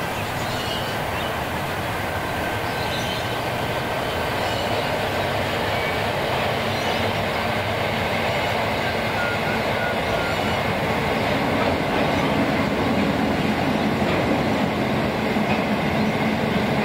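A diesel-hauled ballast train's loaded hopper wagons rolling past at steady speed, with a continuous rumble of steel wheels on rail that grows a little louder toward the end.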